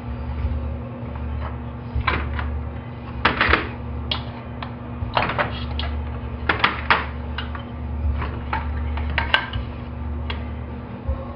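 Irregular metallic clinks and taps, some in quick clusters, as the ignition plate of a Stihl S-10 chainsaw is worked loose by hand from the crankcase on a metal tray. A steady low hum sits underneath.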